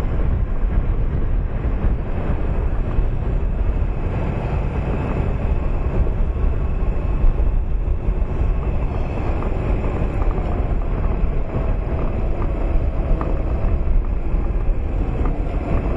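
Wind buffeting the microphone while a 2008 Honda Nighthawk 250's air-cooled parallel-twin engine runs steadily underneath as the motorcycle rides along.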